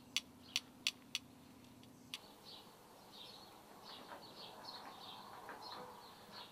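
A few sharp clicks in the first two seconds, then small birds chirping repeatedly, faint, over a soft outdoor hiss.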